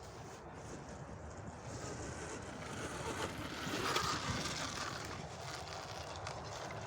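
Electric mid-drive pit bike being ridden off-road: wind rushing over the microphone along with tyre and drivetrain noise, building to a peak about four seconds in and then easing off.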